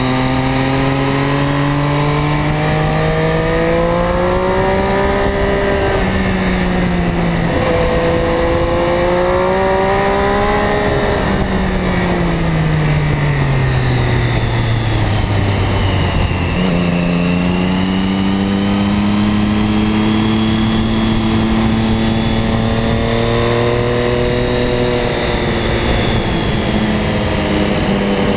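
Ducati Diavel's V-twin engine, heard from a camera mounted on the bike, pulling through a series of bends with wind rush. The pitch climbs as it accelerates, dips at a gear change about six seconds in, falls away as the rider eases off around the middle, then jumps up suddenly at a downshift and holds a steady pull to the end.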